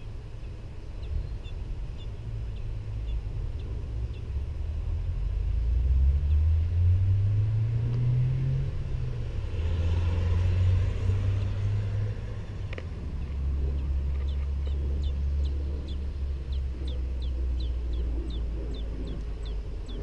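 A low engine drone, its pitch rising over a few seconds, holding, then settling lower. Over it come faint, short, high bird chirps repeating a couple of times a second.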